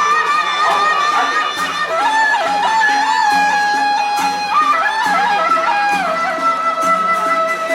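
Traditional music: a reedy wind instrument plays a long, held, wavering melody over a low drum beat about once a second.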